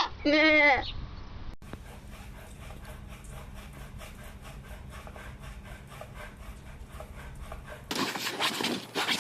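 A goat bleating, the call ending under a second in. Then a quieter, even run of rhythmic scraping or rubbing strokes. Near the end comes a louder, noisy stretch.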